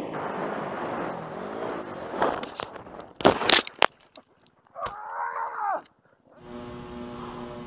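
Dirt bike ridden at speed with wind on a helmet-mounted microphone, then a crash: several loud, sharp impacts from about two to three and a half seconds in. The sound then cuts out briefly, a short wavering pitched sound follows, and near the end a steady hum takes over.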